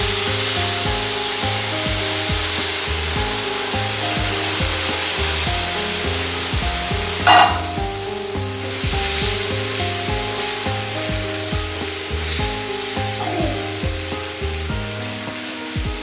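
Hot sugar syrup hitting ghee-roasted semolina in a hot non-stick pan: a loud sizzling hiss that slowly dies down as the liquid takes up the heat. One sharp knock comes about seven seconds in, and a wooden spatula stirs the bubbling mixture toward the end.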